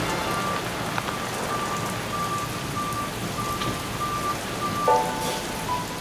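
Steady rain falling on concrete pavement, a dense even hiss of drops.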